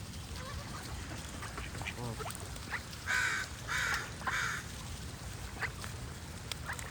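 Waterfowl calling: three loud calls in quick succession about three seconds in, among softer scattered calls and short bird chirps.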